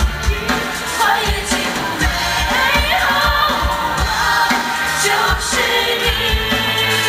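Chinese-style stage music: a woman singing a wavering high melody over an accompaniment with a steady beat.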